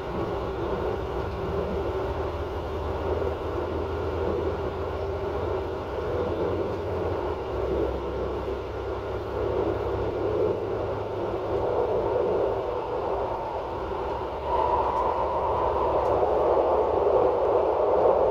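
Regional train's running noise heard from inside its rear driver's cab: a steady hum and rumble that grows louder about fourteen seconds in.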